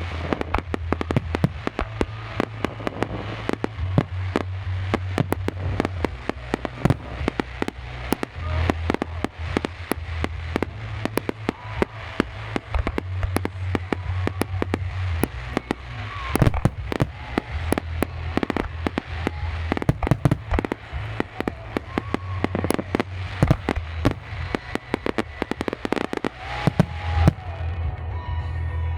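Fireworks display: a dense run of rapid bangs and crackling over music with a pulsing bass beat. The bangs stop about two seconds before the end, leaving the music.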